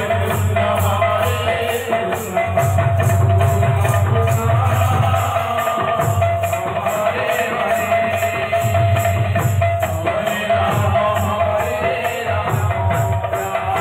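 Odia kirtan ensemble playing: small hand cymbals clash in a steady even rhythm over drum beats and a held melodic note, with little or no singing.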